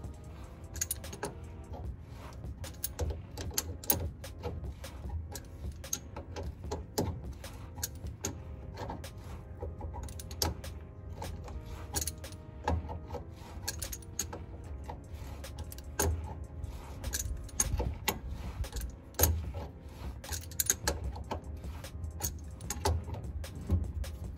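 Irregular metallic clicks and clinks as the rear differential's fill plug is tightened with a hand tool, going on the whole while.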